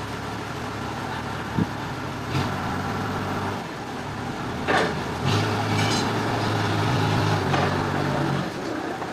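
Sawmill machinery running with a steady low engine hum that grows louder twice for a few seconds, as if taking load, and a couple of sharp knocks or clanks along the way.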